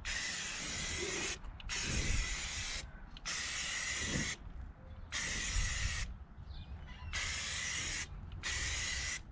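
Aerosol spray can of gloss black enamel hissing in about six spurts of roughly a second each, with short breaks between them as the trigger is pressed and released.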